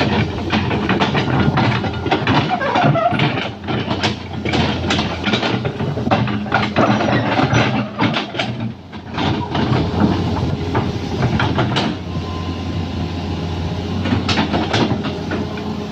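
Excavator running with its engine droning steadily under a stream of irregular metallic clanks and knocks, easing off for a moment late on before the clatter resumes.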